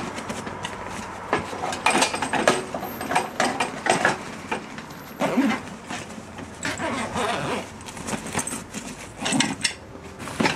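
Zip of a fabric Cobb grill carry bag being pulled closed in several short rasping strokes, with the bag's fabric rustling as it is handled.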